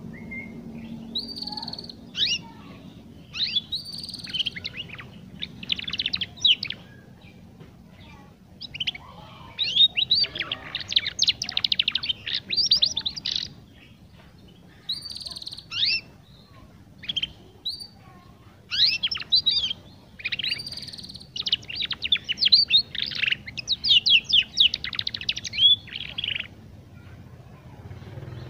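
Young domestic canary practising its learning song: rapid twittering chirps and warbles in phrases a few seconds long with short pauses between.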